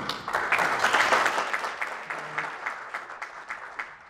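Audience applauding. The clapping swells about half a second in, then thins to scattered separate claps and fades near the end.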